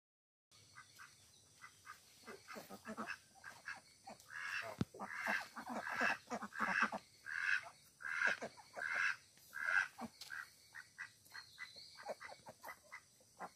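Domestic ducks quacking: quick soft calls at first, then a run of louder quacks about two a second from around four seconds in to about ten seconds, falling back to quieter quick calls near the end.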